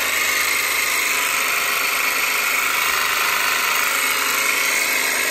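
Makita DJV181Z 18 V cordless brushless jigsaw running steadily with no load, its blade stroking in the air.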